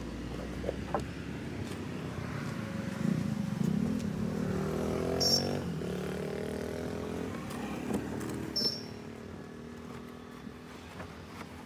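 A motor vehicle engine running, its pitch rising as it revs up around the middle, with two short high squeaks, one about halfway through and one about three quarters of the way in.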